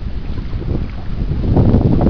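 Water splashing as a hooked salmon thrashes in shallow water at the edge of a gravel bank, over a low rumble of wind on the microphone. The splashing grows louder about one and a half seconds in.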